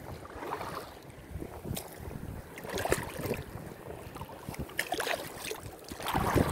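Wind buffeting the microphone over shallow seawater, with irregular splashes and rustles as feet in flip-flops wade over submerged rocks; the loudest burst comes near the end.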